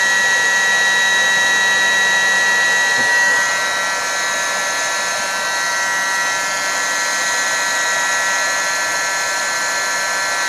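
Hot-air heat gun set to about 380 °C running steadily: a rush of blown air with a high fan-motor whine. It eases slightly about three and a half seconds in while it gently warms the circuit board to melt the solder of a surface-mount LED.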